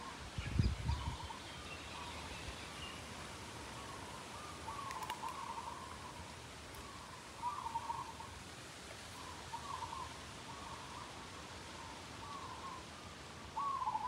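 A bird calling over and over in short warbling phrases, one every second or two, over a soft steady outdoor hiss. A brief low rumble comes in the first second.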